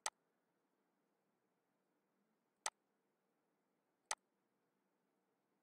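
Three sharp computer mouse clicks over near-silent room tone: one right at the start, one about two and a half seconds in, and a third about a second and a half after that.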